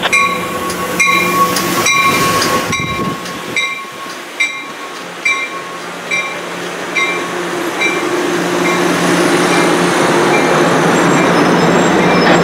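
Amtrak Pacific Surfliner bilevel passenger train rolling slowly past along the platform, with a bell ringing about twice a second. A steady high tone sounds over the first three seconds, and the train's rumble grows louder in the second half.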